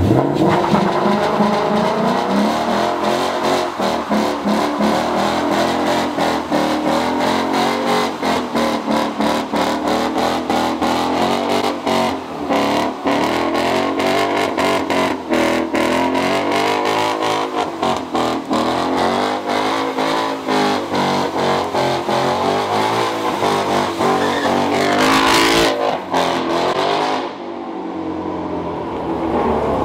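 A Ford Mustang's engine revved hard during a burnout, its rear tyres spinning on wet pavement, the engine note rising and falling the whole time. Near the end the revs climb sharply in one rising run.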